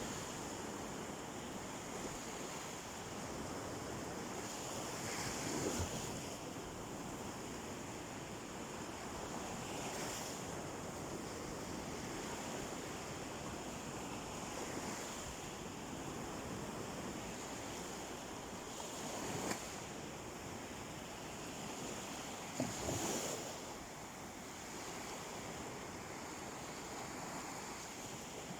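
Sea waves washing onto a beach in a continuous surf hiss, with a few brief louder surges, some wind on the microphone.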